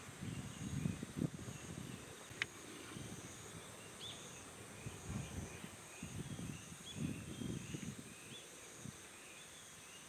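Outdoor field ambience: insects chirping steadily in a high pitch, with faint scattered bird notes and a low, uneven rumble. A single sharp click comes about two and a half seconds in.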